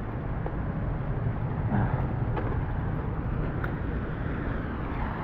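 Steady city street noise: a low, even rumble of distant traffic.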